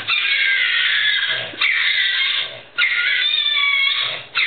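A French bulldog screaming in three long, high-pitched cries, one after another with short breaks between them, played back from a video.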